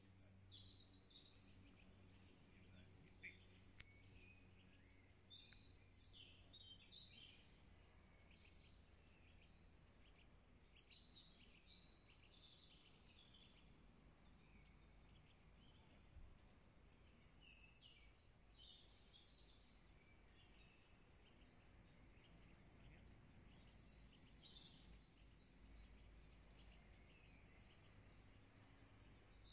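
Faint birdsong: clusters of short high chirps and trills every few seconds, over a faint low background rumble.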